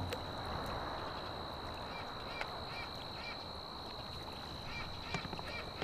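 Outdoor ambience: a soft steady hiss with a thin high steady whine, and short bird chirps repeating from about two seconds in.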